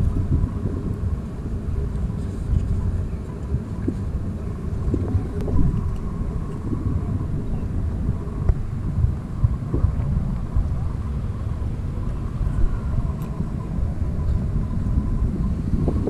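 Steady low outdoor rumble with wind buffeting the microphone, rising and falling slightly in level.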